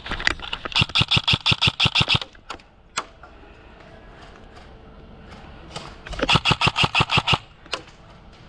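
Airsoft electric rifle firing two rapid full-auto bursts of a dozen or so shots each, the second about four seconds after the first, with a couple of single shots between them.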